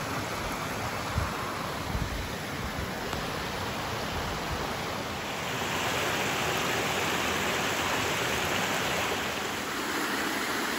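Steady rush of water from a small woodland waterfall cascading over rock ledges, growing louder about halfway through. A few low thumps in the first seconds.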